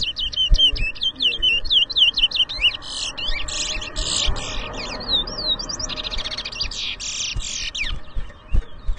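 Towa towa (chestnut-bellied seed finch) singing: a quick run of high chirps and whistled slides, with two longer, denser buzzing trills in the middle of the song. There are scattered low thumps underneath.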